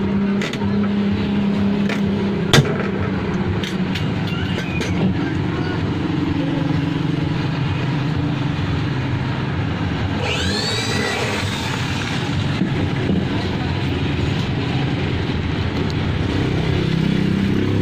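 A steady engine-like drone runs throughout, with a few light clicks and one sharp snap about two and a half seconds in, and a brief squeal a little past halfway.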